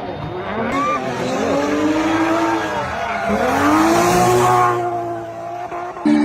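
Rally car engine driving past at speed, its pitch rising and falling several times with throttle and gear changes. A hiss of tyres on the road swells about four seconds in. Just before the end the sound cuts abruptly to a different, steady engine note.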